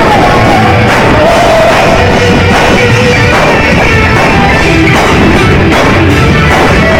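Rock band playing live at a very loud level, with a singer's melody over the band.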